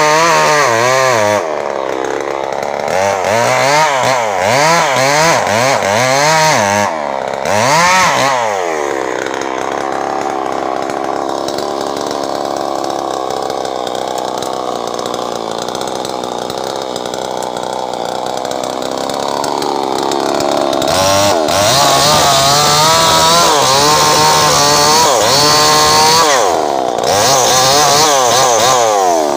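Two-stroke Stihl chainsaw engine revving up and down in quick repeated swings, then held at high speed for about ten seconds, then revving up and down again while the chain cuts through a felled log near the end.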